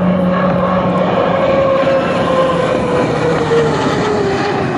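Racing hydroplane's engine running loud and steady at speed, its pitch slowly falling as the boat passes by.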